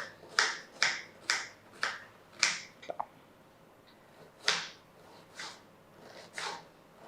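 Kitchen knife chopping an onion into small pieces: a run of quick, sharp chops about two a second, a pause of over a second, then three slower chops.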